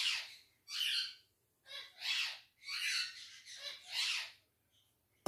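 A pet bird squawking repeatedly: about five harsh calls, each about half a second long, roughly one a second.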